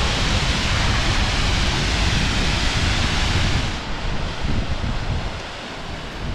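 Wind buffeting the microphone with a gusty low rumble under a steady rushing hiss; about four seconds in the hiss drops away and the rumble eases.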